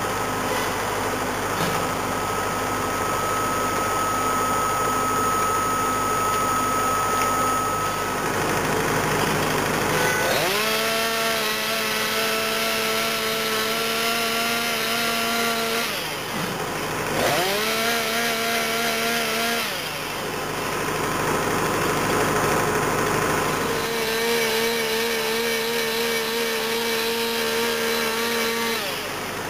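Chainsaw making the felling cut in the trunk of a sycamore. It runs low for about the first ten seconds, then revs up to full throttle and cuts three times: about five seconds, then two seconds, then five seconds near the end. Between the cuts it drops back toward idle.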